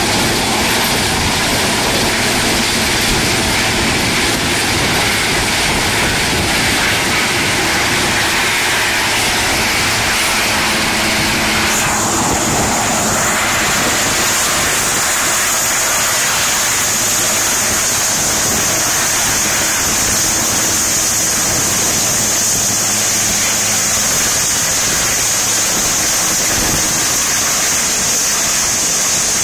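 Rescue helicopter hovering over the sea, its engine and rotor noise steady over a constant rushing hiss like surf. A high, steady whine comes in about twelve seconds in and holds on.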